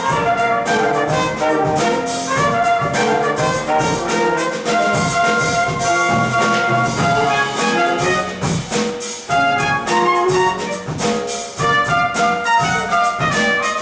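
Instrumental break in a musical-theatre chorus number: brass-led band music with percussion keeping a steady beat, no singing.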